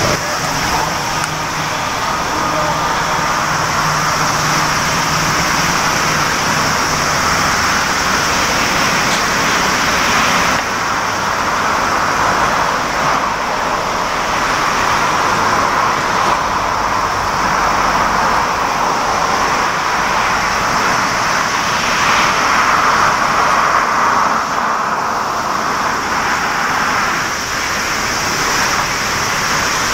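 GE90 turbofan engines of a Boeing 777 freighter at taxi power: a steady loud rush of jet noise with a high hiss on top, swelling and easing a few times.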